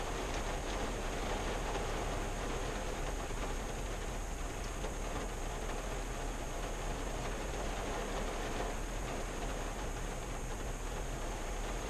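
Rain falling on a 1974 Valiant, heard from inside the closed cabin: a steady patter of drops on the windshield and body.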